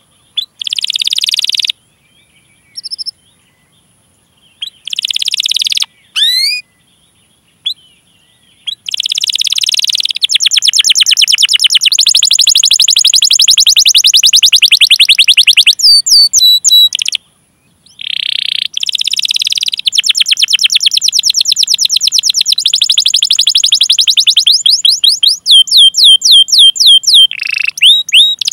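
Domestic canary singing: a few short phrases and gaps, then from about nine seconds in, long fast rolling trills of rapidly repeated notes, broken by a pause around the middle and ending in a run of separate rising 'cuit cuit' sweeps.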